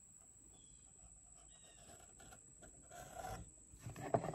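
Faint scratching of a Sharpie marker on a plastic holster as a curved line is traced around a roll of tape. Near the end, louder rustling and knocking as the pieces are handled.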